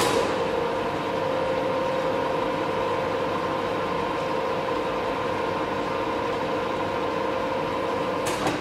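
Ernault Somua Cholet 550 lathe running with its empty three-jaw chuck spinning. A clunk as the spindle starts is followed by a steady hum with a held whine from the headstock, and a click near the end.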